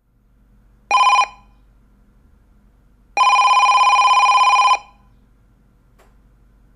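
Telephone bell ringing: a short ring about a second in, then a longer ring of about a second and a half with a fast trill.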